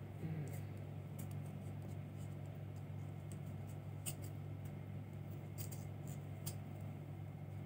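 Red yarn being pulled and wound around a clear plastic hoop: scattered small clicks and ticks of handling, about a dozen spread irregularly, over a steady low hum.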